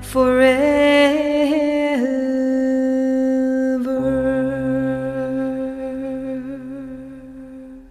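Slow vocal music: a voice holding long sung notes with a slight waver, a first note of about two seconds, then a second long note that fades out toward the end.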